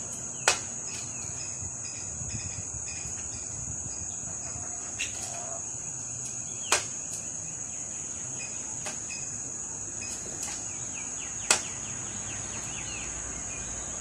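A greater flameback woodpecker pecking at a mirror: about six single sharp taps at uneven intervals, three of them loud. Under the taps runs a steady high-pitched insect drone.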